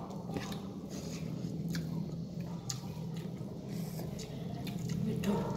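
Eating by hand: soft squelching of fingers mixing rice and prawn curry on a plate, with chewing and scattered small mouth clicks, over a steady low hum.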